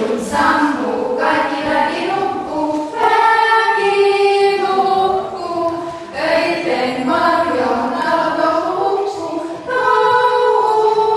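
A small group of women singing together a cappella in long held phrases, with brief breaths between phrases about three, six and ten seconds in.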